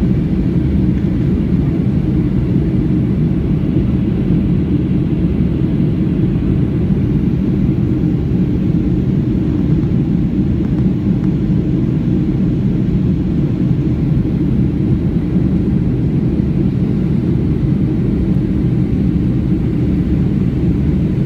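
Steady low rumble of a Boeing 737 in flight, heard inside the passenger cabin: jet engine noise and airflow over the fuselage, with no change throughout.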